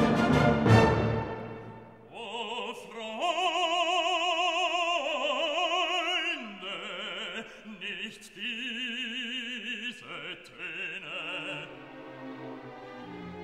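Background music: an orchestral chord dies away in the first two seconds, then an operatic voice sings long held notes with wide vibrato over orchestra.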